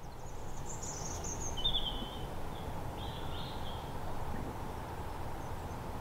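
Quiet outdoor background with a bird calling faintly a few times in the first half.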